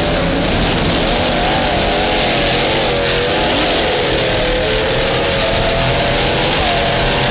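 Offshore racing powerboat's engines running at high revs, their pitch wavering up and down, over a steady rushing noise.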